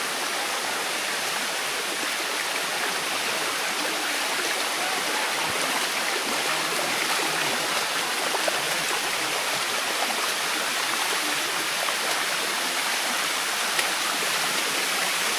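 Shallow water steadily rushing and splashing down a mineral-crusted limestone waterfall cascade.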